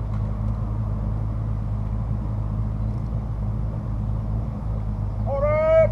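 Steady low hum of an idling engine. Near the end, a long rising shouted call begins.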